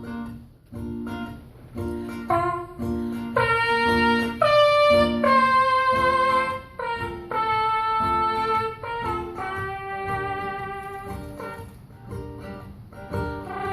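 Instrumental break: ukulele strumming, joined after about two seconds by a trumpet-like lead melody of held notes.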